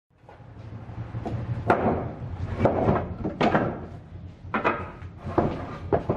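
Wooden boards knocking and clattering against one another as they are pulled from a stacked lumber pile: a series of about seven sharp wooden knocks, over a steady low hum.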